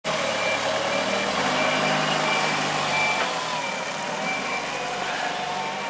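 Forklift engine running under load while it pushes a snow plough, its pitch shifting a couple of times, with the reversing alarm giving short high beeps at intervals.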